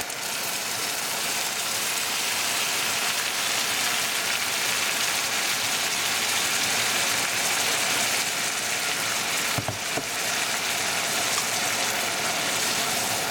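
Canned bean liquid sizzling and bubbling steadily in a hot cast iron skillet over bacon fat, onion and brown sugar.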